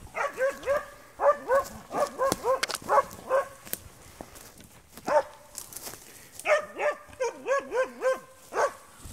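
Spitz hunting dog barking in quick runs of high, yelping barks with pauses between them, as a dog does when baying quarry on a badger hunt. Short rustles and clicks run in between.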